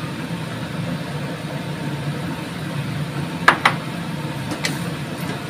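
Steady low drone of a wok of vegetables cooking on a gas stove, with two sharp clicks close together about three and a half seconds in and a fainter one about a second later.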